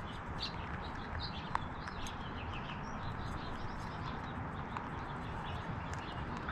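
Small birds chirping in short, scattered calls over a steady low background noise. A ground squirrel feeds at a seed tray close by, making small clicks and one sharp click about a second and a half in.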